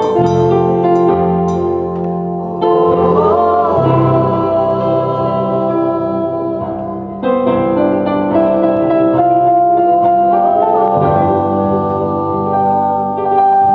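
Worship music: an organ-voiced keyboard holding long chords that change every few seconds, with voices singing over it.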